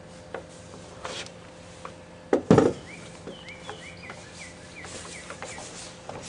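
Outdoor background of small birds chirping in short rising calls, with one loud knock about two and a half seconds in and a few light clicks. No drill is running.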